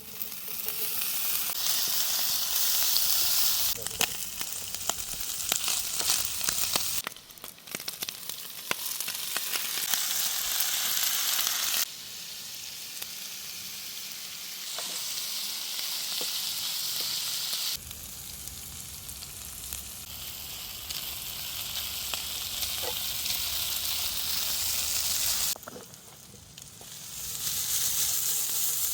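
Food frying with a steady sizzle and scattered small pops. The sizzle jumps abruptly louder or quieter several times.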